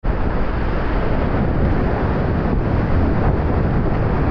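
Steady loud rush of whitewater rapids, with heavy low rumble.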